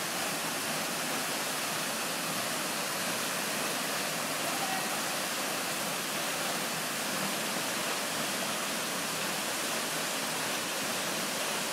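Cedar Falls waterfall pouring into its pool: a steady, even rush of falling water with no change.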